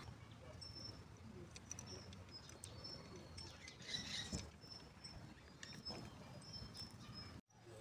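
Faint, short, high bird chirps repeating in the background, with a few light clicks from handling. The sound cuts out completely for a moment near the end.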